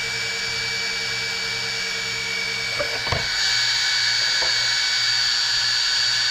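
Small electric cooling fans on an RC car's motor heatsink and speed control, running with a steady high whine. A few light knocks come about three seconds in, after which the whine is a little louder.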